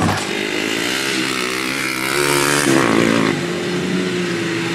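Modified mud truck engine revving, its pitch rising over about two seconds. Near the end it gives way to a truck engine running at a steady pitch.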